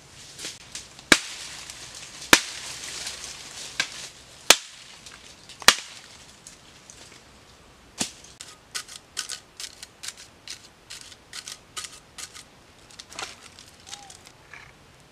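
Wooden sticks and branches snapping as they are broken: four loud, sharp cracks in the first six seconds, then a quick run of smaller snaps.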